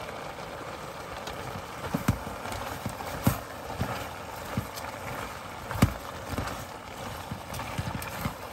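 A cooking utensil knocking against a pot several times, sharp single clicks a second or so apart, over a steady sizzling hiss of stew vegetables cooking down.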